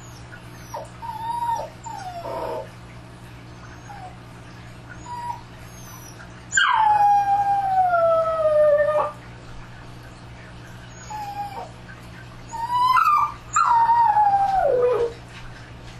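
A dog howling and crying: a few short whining cries that drop in pitch, then two long howls about six seconds apart, each sliding steadily downward, over a steady low hum.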